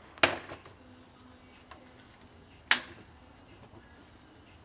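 Two sharp knocks, about two and a half seconds apart, over a faint low hum.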